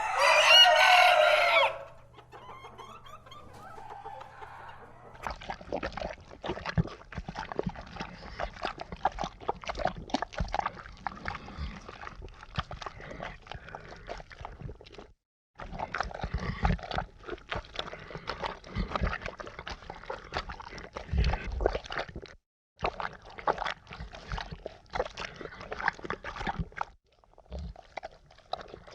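A rooster crows once at the start, then chickens cluck and chatter in a string of clips separated by brief silent gaps.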